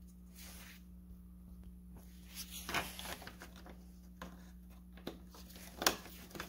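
Plastic cover being handled and pressed onto the radiator fan shroud, scraping and rustling plastic, with a few clicks as its clips go in and the sharpest click near the end. A steady low hum runs underneath.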